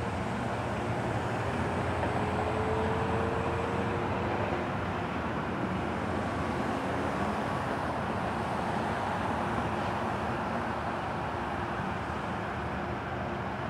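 Diesel commuter train idling while stopped at the platform: a steady low engine drone, with a faint whine rising about two seconds in.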